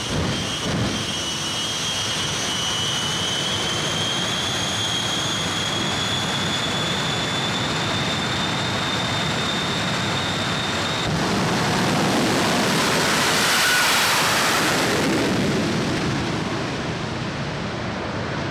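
Jet engines of a three-jet Mack show truck running with a high steady whine that creeps up in pitch, with a few sharp pops of flame at the start. About eleven seconds in, the whine gives way to a louder jet rush that swells and then fades as the truck runs off down the strip.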